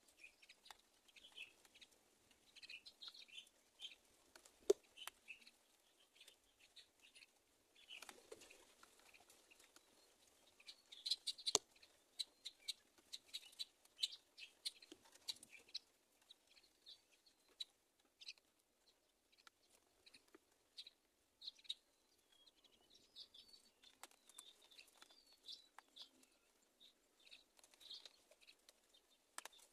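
Myna nestlings giving short, high cheeps on and off, faint, with scattered clicks and scratches among them, loudest around eleven seconds in.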